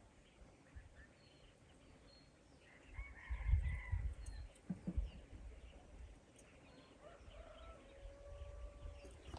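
Birds chirping outdoors: short high chirps repeated throughout, a burst of calls about three seconds in, and a longer drawn-out call near the end, over a low rumble.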